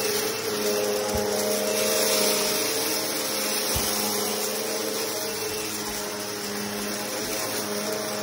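Eureka PowerLine Plus upright vacuum cleaner running steadily while it is pushed over carpet, picking up scattered rice and oats, its motor giving a constant hum with a set of steady tones over a rush of air. Two soft low knocks come about a second in and near the middle.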